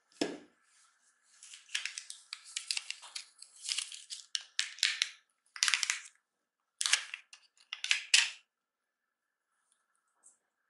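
A soft knock as a plug charger is set down on a tabletop, then crinkling plastic in uneven spells as a USB-C cable is pulled out of its clear plastic bag and handled. The crinkling stops about two seconds before the end.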